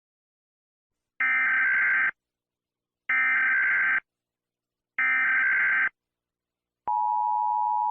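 Emergency Alert System SAME header: three identical screeching data bursts, each about a second long with a second's gap between them, followed near the end by the steady two-tone EAS attention signal.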